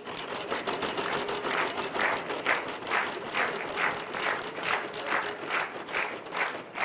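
Game-show prize wheel spinning, its pointer flapper clicking against the pegs in a rapid run of clicks that gradually slows as the wheel loses speed.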